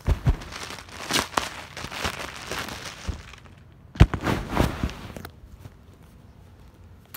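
Clear plastic shirt bags crinkling and rustling as they are handled, in two spells with sharp knocks at the start and about four seconds in, then much quieter.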